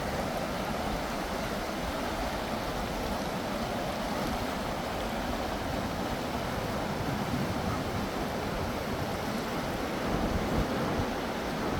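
A stream running steadily, a continuous rush of flowing water.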